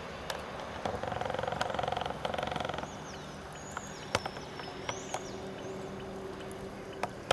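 Water dripping and splashing as a seine net full of carp fingerlings is worked in the pond, with scattered small splashes. A rattling buzz lasts about two seconds near the start, and a few high chirping calls follow.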